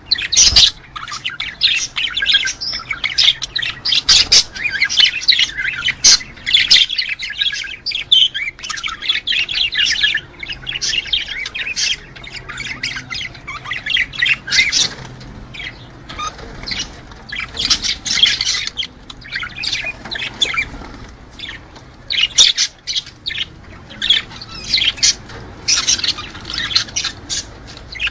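Budgerigar warbling: a fast, nearly unbroken stream of chirps, clicks and squawks with a couple of short lulls. This is the courtship chatter of budgies in breeding condition.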